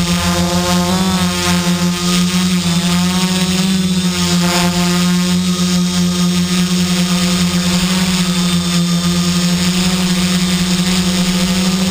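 Quadcopter's electric motors and propellers humming steadily, heard from a camera mounted on the craft. The pitch wavers briefly about a second in and again around four seconds in.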